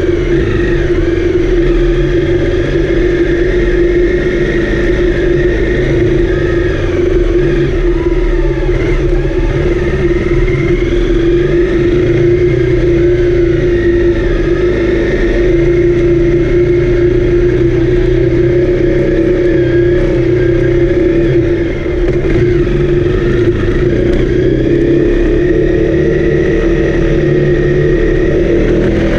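Honda CRF250L's single-cylinder four-stroke engine running at a steady, near-constant pitch while the bike is ridden, with a brief dip about three-quarters of the way through.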